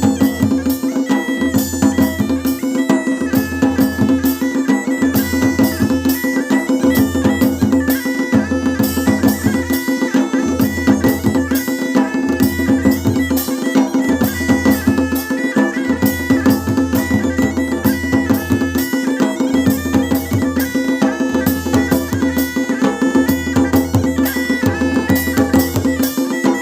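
Kumauni folk music: a masakbeen (Kumauni bagpipe) plays a melody over its steady drone, while dhol and damau drums beat a fast, driving rhythm.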